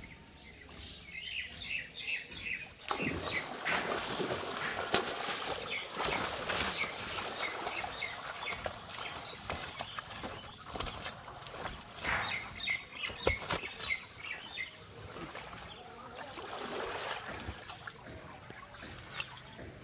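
Water splashing and sharp knocks as a cast net holding a large fish is hauled into a wooden boat, with birds chirping in short repeated calls.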